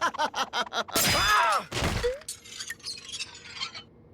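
Cartoon crash sound effect: something smashes loudly about a second in, with a short cry over it, followed by scattered bits of debris clattering and tinkling for a couple of seconds.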